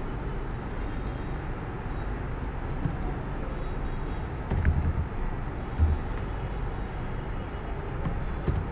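Steady room noise and microphone hiss with a low hum, broken by a couple of soft low thumps around the middle and a few faint clicks.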